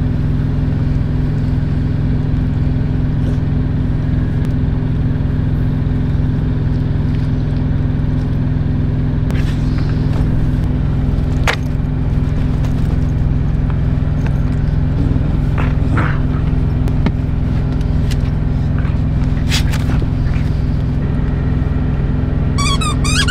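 Steady low hum of a semi-truck's diesel engine idling, heard inside the sleeper cab, with a few light knocks and rustles of movement over it.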